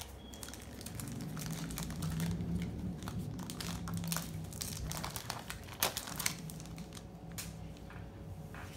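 Foil Pokémon booster pack wrapper crinkling with scattered sharp crackles as the pack is handled and opened.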